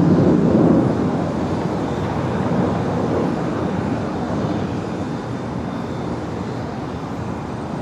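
Jet aircraft engine noise: a steady rushing sound, loudest in the first second and easing off slightly after.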